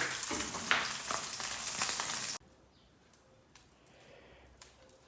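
Egg frying, a steady sizzle with a few louder crackles, that cuts off abruptly about halfway through. A few faint light ticks follow.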